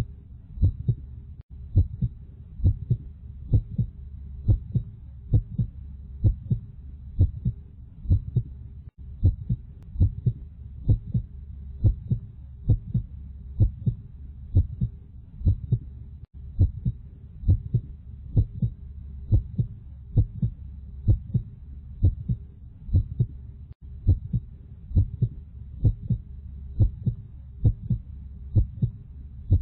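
Heartbeat sound: a steady rhythm of paired lub-dub thumps over a continuous low hum.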